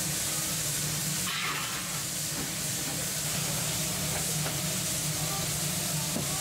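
Spicy red rabokki sauce with rice cakes and fish cakes boiling hard in a frying pan over a gas burner: a steady bubbling hiss and sizzle, briefly louder about a second and a half in, over a steady low hum.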